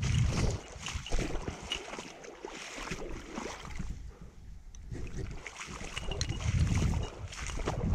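Wading through shallow floodwater: legs sloshing and splashing with each stride. The strides are loudest near the start and near the end, with a quieter pause in the middle.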